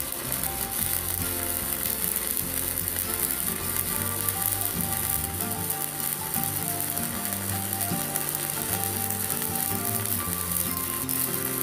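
Stick (MMA) arc welding with a 4.0 mm electrode on a small IGBT inverter welder: the arc crackles and sizzles steadily, without breaking off.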